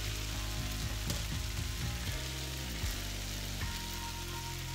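Taco beef mince sizzling steadily in a frying pan, under low background music.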